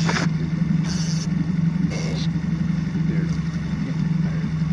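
Boat's outboard motor idling with a steady, unchanging low hum.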